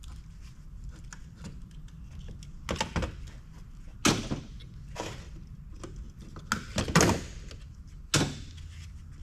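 Scrap parts of sheet aluminum and heavy plastic being handled and set down: about six separate clunks and clatters, irregularly spaced, the loudest about four and seven seconds in.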